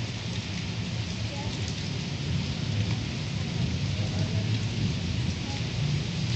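Light drizzle falling steadily on a wet concrete lane: an even hiss of rain with a low rumble underneath.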